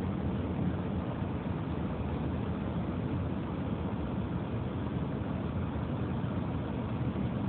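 Steady low rumble heard from inside a car's cabin while a freight train of loaded cars rolls past the crossing, with no horn, bells or separate knocks standing out.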